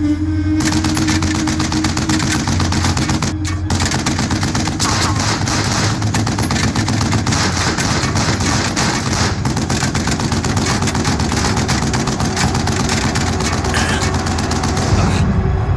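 Sustained automatic gunfire, a dense rattle of rapid shots that breaks off briefly about three seconds in and then runs on, with bullets striking a jeep. A vehicle engine runs underneath, and the shooting stops shortly before the end.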